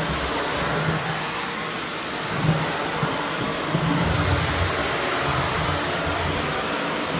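Shark Liftaway upright vacuum cleaner running steadily, sucking up pine needles and dirt, with a low rumble that comes and goes.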